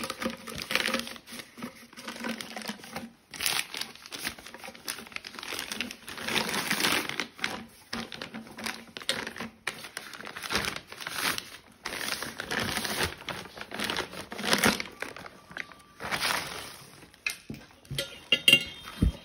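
Packaging being handled and pulled apart: irregular crinkling and rustling with some tearing, in uneven bursts, and a sharp knock near the end.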